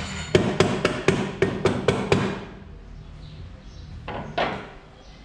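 A quick run of about eight sharp hammer blows, roughly four a second, on the scooter's CVT transmission cover, then two lighter knocks near the end.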